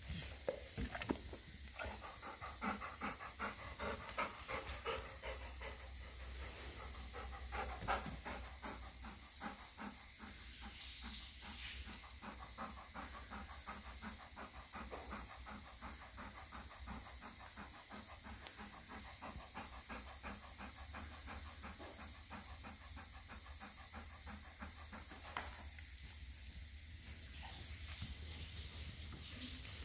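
Golden retriever panting rapidly and evenly, excited while waiting to be fed.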